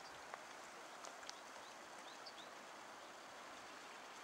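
Faint, even hiss of a wide river flowing, with a few faint short high bird chirps about two seconds in and a couple of light clicks earlier.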